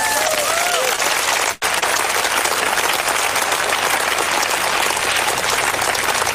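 Large crowd applauding, with a few rising cheers over the clapping in the first second. The sound cuts out for an instant about one and a half seconds in.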